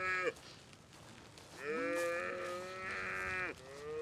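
Murray Grey cattle bawling: the end of one call at the start, a long drawn-out moo of about two seconds in the middle, and another shorter moo beginning near the end.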